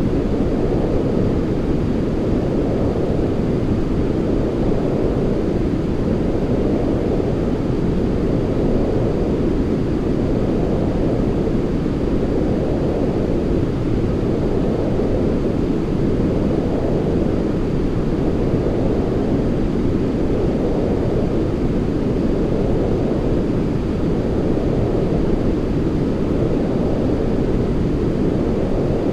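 Continuous white noise for sleep, deep and muffled rather than hissy, with a gentle rise and fall about every two seconds.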